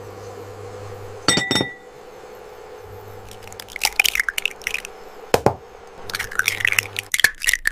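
A cat eating, with quick runs of crunchy, clicky chewing sounds and a few sharp clinks.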